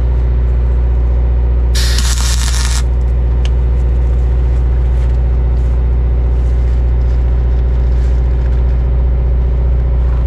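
A short welding-arc hiss, about a second long and about two seconds in, as a bead is laid on the seam between aluminum bulwark plates. Under it a steady low engine drone runs throughout.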